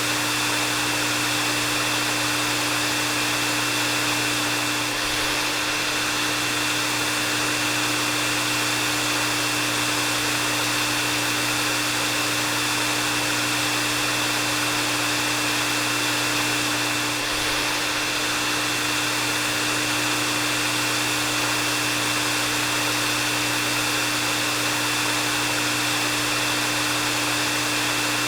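Hair dryer running steadily: a constant rush of blown air with an even motor hum and a thin high whine, unchanging in pitch and level.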